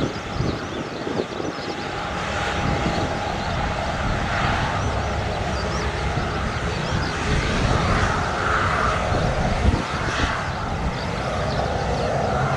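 Jet airliner engines running with a steady roar, with gusty wind buffeting the microphone.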